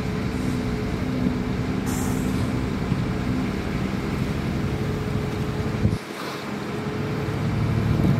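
Heavy diesel engine of earthmoving machinery running steadily, with a short hiss of air about two seconds in. About six seconds in the sound drops abruptly and a lower engine note builds back up.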